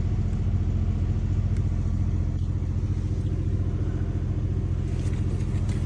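Engine of a compact construction machine idling steadily, a low even drone with no change in speed.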